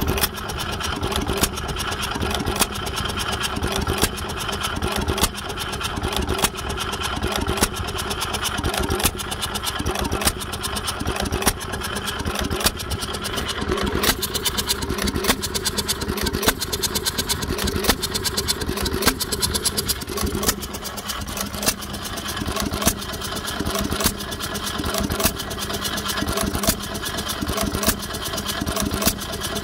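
Cooper KA 2 hp hopper-cooled hit-and-miss stationary engine running, a sharp firing stroke about every second and a quarter with the engine coasting on its flywheels between, and steady light mechanical clicking throughout.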